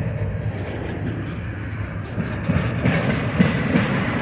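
Double-stack intermodal freight train rolling past: the steady low rumble of steel wheels on the rails as the loaded container well cars go by.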